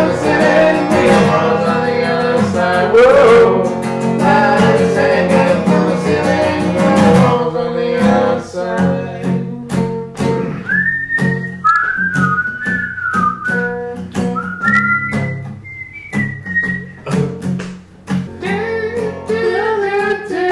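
Acoustic guitar with a capo strummed in full chords for the first several seconds, then played more lightly. From about ten seconds in, someone whistles a gliding melody over it for several seconds.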